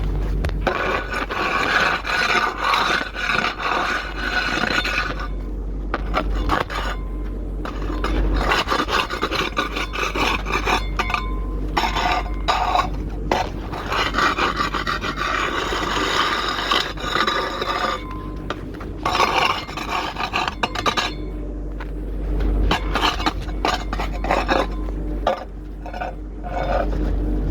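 Rough scraping against a hard surface in long irregular stretches with brief pauses, over a steady low hum.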